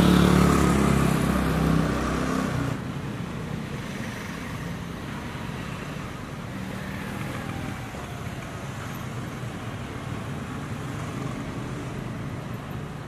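A motor vehicle's engine runs loud and close at the start and drops away sharply about three seconds in, leaving a steady city-street traffic rumble with engines in the distance.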